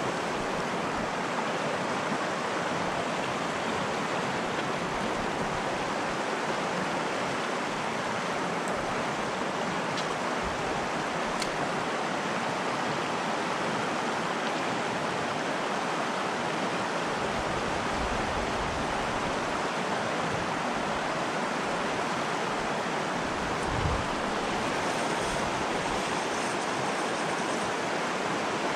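River water flowing steadily, a constant rushing hiss without breaks.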